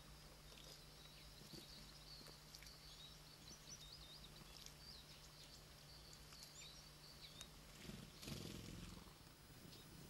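Faint, distant songbird song warbling over a steady low hum, with a brief noisy rustle about eight seconds in.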